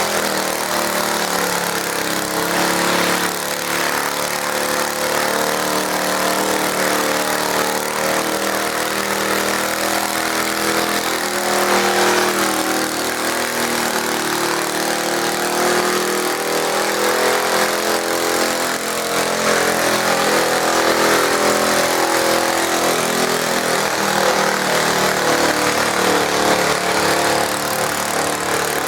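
Garden tractor engine running steadily under power, its pitch wavering slightly.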